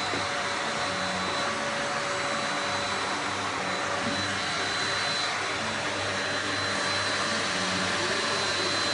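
Electric vacuum cleaner running steadily, a constant rushing of air with a steady high whine.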